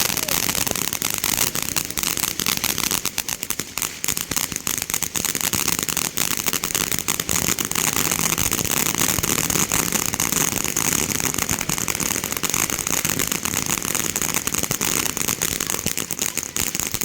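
Fireworks crackling: a dense, unbroken run of rapid sharp pops.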